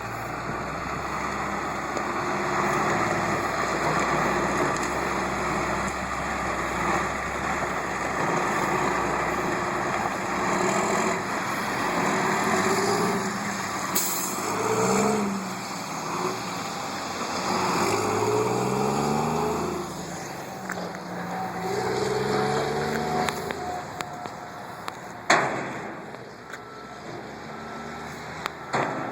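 Heavy diesel construction machinery running, its engines revving up and down several times, with one sharp bang about three-quarters of the way through. Faint intermittent beeping near the end.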